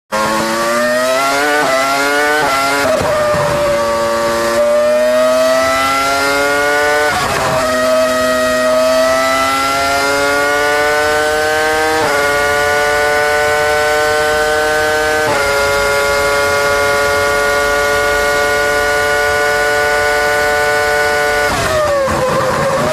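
Toyota TF104 Formula One car's 3.0-litre V10 at full throttle, heard onboard: a high scream that climbs in pitch through the gears, with a quick drop at each upshift. It holds a steady high pitch for several seconds, then falls sharply near the end.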